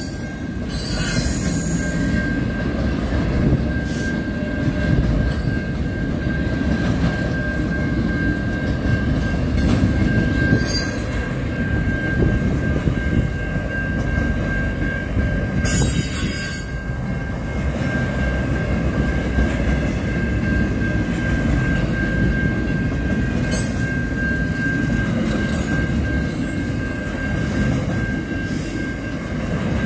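Intermodal container freight train's wagons rolling past at speed: a steady low rumble of wheels on rail, with a thin, steady high-pitched wheel squeal held throughout and a few brief louder swishes as wagons go by.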